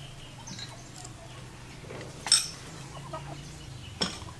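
Chickens clucking in the background, with one loud, short squawk about halfway through and another short call near the end, over a faint steady low hum.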